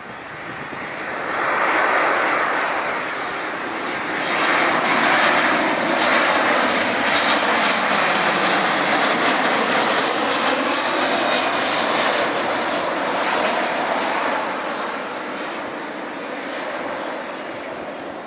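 Ryanair Boeing 737-800 on final approach with gear down, its twin CFM56 turbofans at approach power. The jet noise swells as it comes in, is loudest as it passes overhead with a sweeping whoosh, then fades slowly as it heads away toward the runway.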